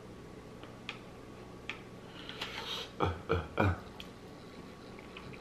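Chopsticks clicking lightly against a plastic sushi tray a few times while a sushi piece is picked up and eaten, with a short hiss and then three short low thuds close together about three seconds in.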